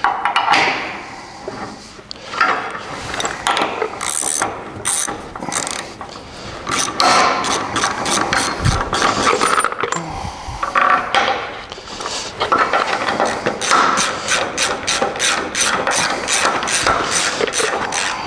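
Hand ratchet wrench clicking as nuts are run onto the bolts of a truck frame rail. The clicks come in short uneven runs, then a steadier run of about three a second in the second half.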